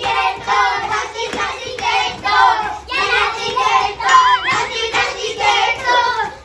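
Children singing a Malayalam song together, a steady held tone running beneath the melody.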